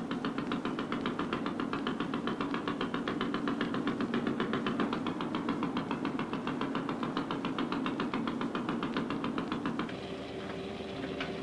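Diesel engine of a fishing cutter running with a rapid, even knocking beat. Near the end it gives way to a quieter, steadier engine hum.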